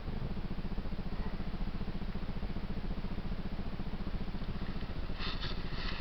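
Dirt bike engine idling steadily, a fast even beat of firing pulses. A few short sharp clicks come near the end.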